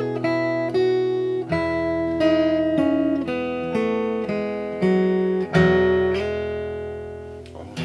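Guild D-50 Bluegrass dreadnought acoustic guitar, fitted with a replaced nut, saddle and bridge pins, played fingerstyle. Single picked melody notes sound over ringing bass notes. A chord is struck a little past halfway and left to ring and fade before a few new notes are picked near the end.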